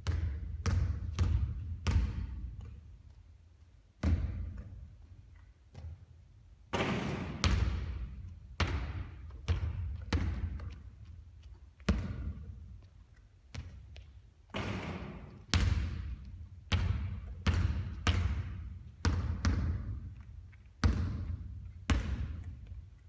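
A basketball bouncing on a hard court during shooting practice: a series of sharp, irregularly spaced thuds, each trailing off in a short echo.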